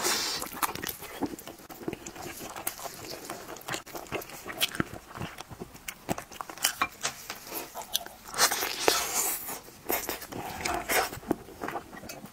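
Close-miked eating of braised pork trotter: wet biting, gnawing and chewing with many short lip smacks and clicks. A denser, noisier stretch comes about eight seconds in.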